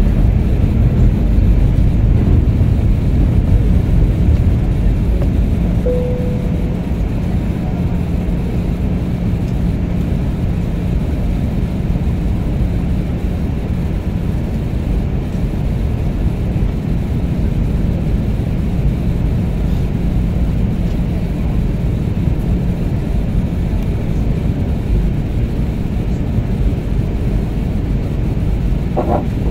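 Steady cabin noise of an airliner in flight on its descent: a low rumble with a steady hum, a little louder in the first few seconds. A short tone sounds once about six seconds in.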